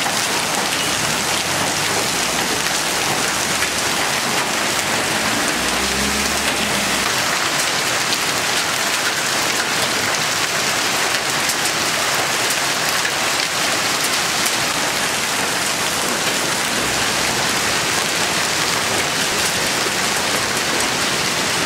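Heavy hailstorm with rain: a steady, dense clatter of hailstones and rain pelting down, with many separate sharp hits. About six seconds in there is a brief low rumble.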